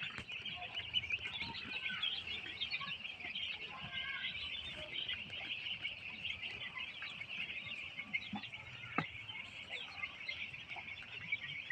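A large flock of broiler chickens calling together: a dense, continuous chorus of many overlapping high-pitched cheeps, with a single sharp click about nine seconds in.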